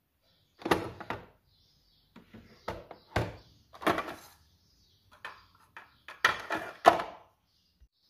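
Hard plastic parts knocking and clacking as they are handled: about a dozen sharp knocks in four clusters, the loudest near the end.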